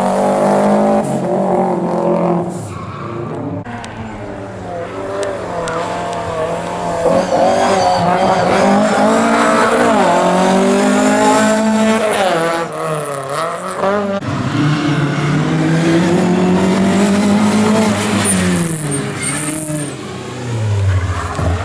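Rally cars driven hard through tight tarmac corners, one after another: a Subaru Impreza's flat-four, then a Mk2 Ford Escort, then a small hatchback. The engines rev up and drop back repeatedly through gear changes and lifts, with brief tyre squeal near the end.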